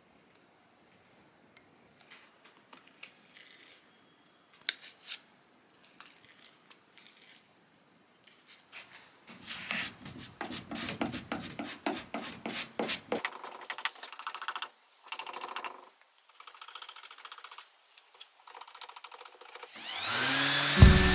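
Hand scraping and rubbing strokes of a yellow hand-held sanding pad on the wooden side of a mahogany chest of drawers: irregular and faint at first, then denser and louder from about nine seconds in. Guitar music comes in near the end.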